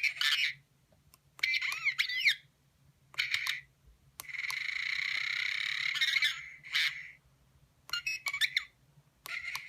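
R2-D2 droid sound effects played from the small sound module and speaker built into a Bandai R2-D2 model: short bursts of electronic beeps, chirps and whistles with sliding pitches, separated by brief gaps. About four seconds in comes a longer buzzing warble lasting about two seconds.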